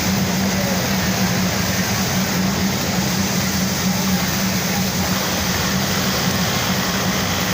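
Steady hum and whir of industrial sewing machines running, a continuous machine-room din with a low hum underneath.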